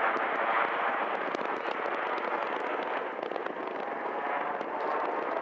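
Jet engine noise from a formation of BAE Hawk T1 jets overhead: a steady rush with a crackle in it, easing a little about halfway through.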